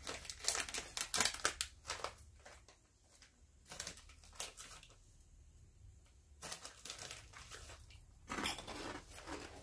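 A plastic snack bag crinkling as it is opened and handled, with a quiet pause in the middle. Near the end come more rustling and the crunching of grain-free nacho cheese protein puffs being eaten, which are extremely crunchy.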